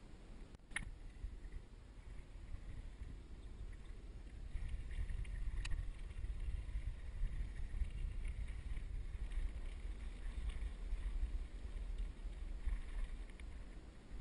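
Uneven low rumble of wind buffeting the microphone, with a couple of sharp clicks.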